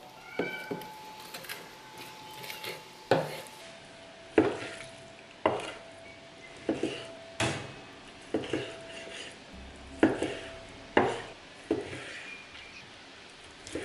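A large survival knife cutting raw meat on a wooden cutting board, its blade knocking sharply against the board about once a second, around a dozen times.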